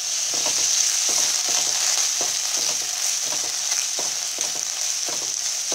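Chopped apple frying in ghee in a non-stick pan, sizzling steadily, while a silicone spatula stirs and scrapes the pieces in quick repeated strokes, about two to three a second.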